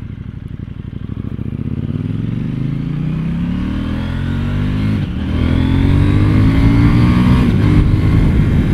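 KTM 790 Duke's 799 cc parallel-twin engine, through its stock exhaust, pulling hard under acceleration. The engine note rises in pitch, drops briefly on an upshift about five seconds in, climbs again and shifts up once more near the end, growing louder throughout.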